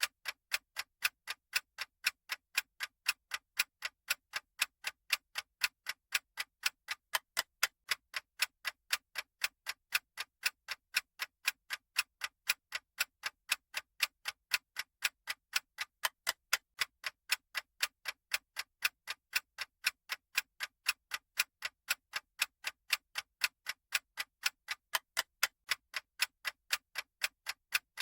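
Clock-style ticking sound effect of a countdown timer: sharp, evenly spaced ticks at about two a second, at a steady level.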